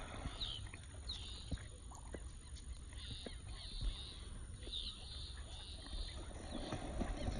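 Ducks calling: short, high whistled notes, each sliding down in pitch, come in small clusters several times, over a low steady rumble.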